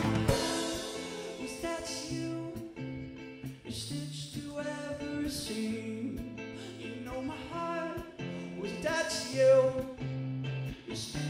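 A rock band playing live: electric and acoustic guitars holding chords over bass and drums, with cymbal crashes every couple of seconds.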